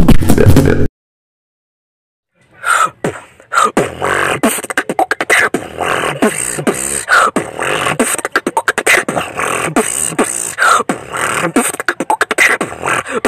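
Beatboxing: a loud, bass-heavy beatbox routine cuts off abruptly about a second in. After a second and a half of silence another beatbox routine starts, quieter and with less bass, a fast, dense run of sharp clicks and mouth percussion.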